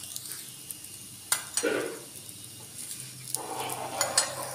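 Rava-coated pomfret shallow-frying in oil on a tawa, a steady sizzle throughout. A few sharp clicks against the pan come about a second and a half in, and scraping sounds set in for the last second or so.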